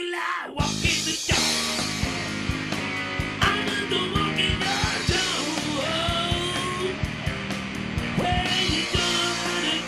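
Rock band playing with drums, bass and electric guitars: after a brief sparse break, the full band comes in about half a second in, and lead lines bend above the rhythm.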